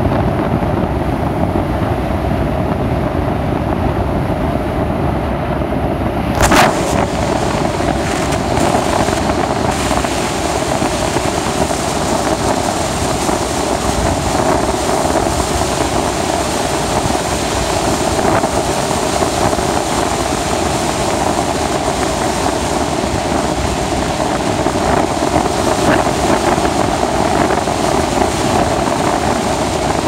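Force 5 to 6 wind buffeting the microphone aboard a container ship in rough sea, a loud steady rush mixed with the hiss of the bow wave breaking. A brief knock comes about six seconds in, after which the hiss turns brighter.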